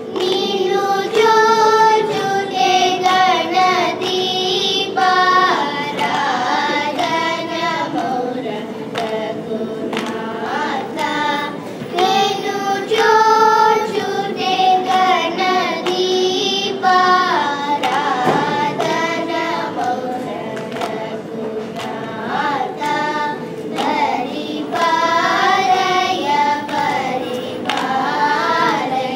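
Group of young girls singing a Carnatic song in unison, held over a steady drone from an electronic tanpura.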